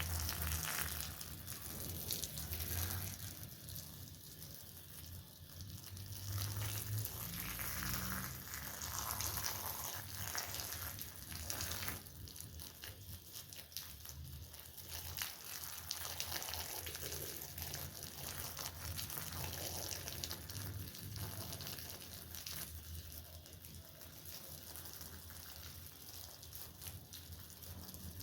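Water splashing and soap foam crackling as a woollen rug is washed: an uneven wet hiss full of fine pops, over a low hum.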